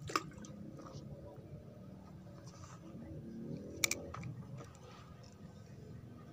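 Faint handling and rubbing noises with two sharp clicks, one at the start and one about four seconds in, over a low murmur of distant voices.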